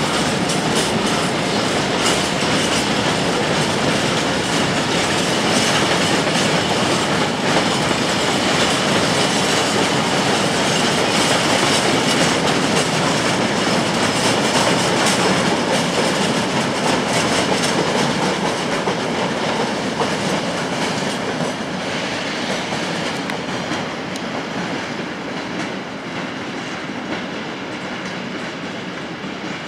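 A train rolling through the station's tracks and points, its wheels clicking over rail joints amid steady running noise that gradually fades over the last several seconds.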